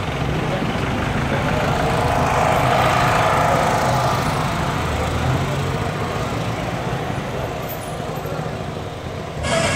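A vehicle engine running steadily at idle, with a louder swell of mid-pitched noise a few seconds in. The sound changes abruptly just before the end.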